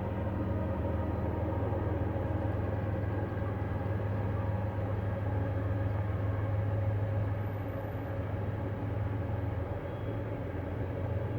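A steady low hum of unknown origin, strongest in a deep tone with fainter higher tones over it, swelling a little about seven seconds in and easing slightly after.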